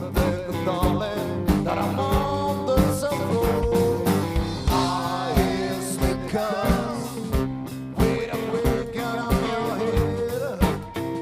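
A live blues-rock band plays an instrumental passage: a lead guitar line with bent and sliding notes over bass and a steady drum beat.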